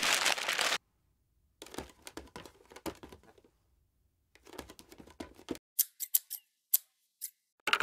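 Craft supplies being handled and set down on a table: a loud paper rustle at the start, then scattered light taps and rustles, and a few sharp clicks near the end, with dead silence between them.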